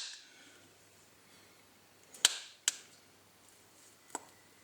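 Three short, sharp clicks of hard objects being handled or set down on a workbench: two about half a second apart a little after two seconds in, and a fainter one near the end, with quiet room tone between.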